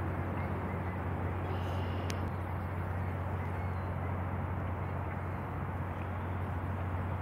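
Steady low engine drone of a fireboat running across open water, with an even hiss over it.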